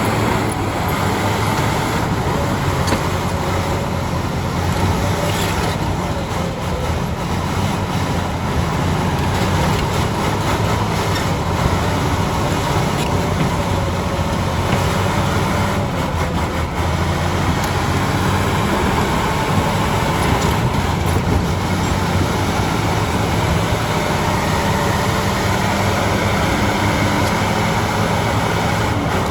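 Bulldozer's diesel engine running steadily under load, with a noisy mechanical clatter over it and a few faint knocks.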